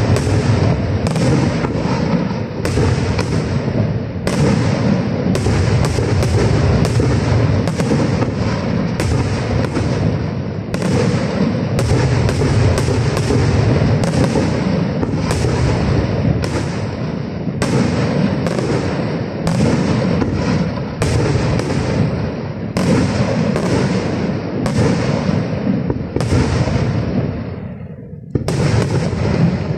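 Aerial fireworks shells bursting overhead in rapid succession, one sharp report close on another in a dense, continuous barrage. There is a brief lull near the end before another burst.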